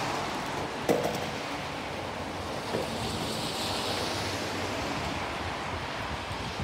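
Skateboard wheels rolling over paving slabs under a steady rushing noise of wind on the microphone, with a sharp knock from the board about a second in.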